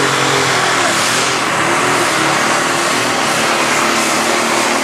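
Light pro stock pulling tractor's turbocharged diesel engine running at full power under heavy load as it drags a weight-transfer sled down the track, a steady, loud engine note over a rushing turbo roar.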